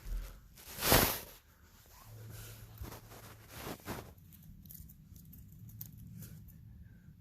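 Rustling and crinkling of crinkly material being handled, with a loud burst about a second in and a few softer ones a few seconds later.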